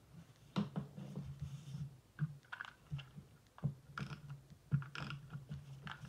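Paper strips and card being handled, pressed down and slid on a craft mat: a string of light clicks, taps and rustles, irregularly spaced, over a steady low hum.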